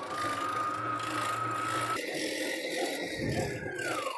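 Stand mixer's electric motor kneading bread dough, a steady whine that steps up in pitch about halfway through, then winds down near the end as the motor stops.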